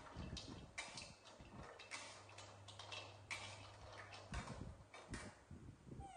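Metal spatula scraping and clinking against a wok as peanuts in their shells are stirred and dry-roasted, a run of irregular clicks and scrapes with the shells rattling.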